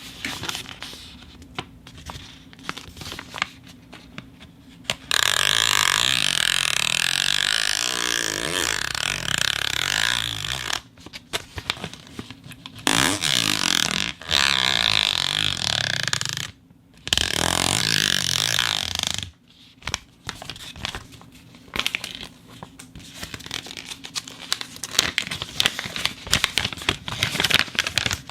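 Foley props being handled: scattered clicks and scrapes, broken by three long stretches of loud steady hiss lasting a few seconds each, then dense crackling scrapes.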